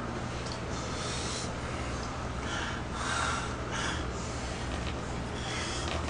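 A man snorting and breathing through his nose in a few short breathy bursts, a stifled chuckle, over a steady low hum.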